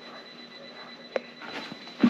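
Quiet room tone with a faint steady hum and one sharp click a little over a second in.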